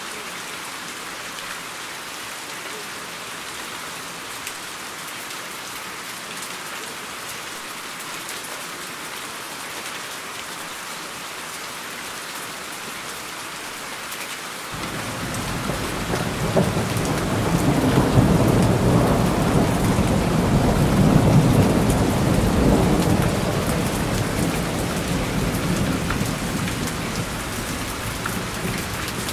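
Steady rain hissing. About halfway through, a long low thunder rumble sets in, swells over a few seconds, and slowly dies away, still rumbling at the end.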